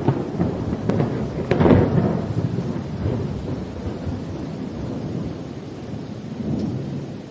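Thunder crackling and rumbling over steady rain, loudest about two seconds in, then dying away to a low rumble with a smaller swell near the end.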